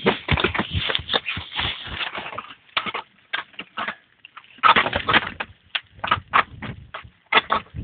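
Crampon points and ice-axe picks scraping, crunching and knocking on frozen, rime-covered rock: a quick run of sharp scrapes with a sparser pause about halfway through.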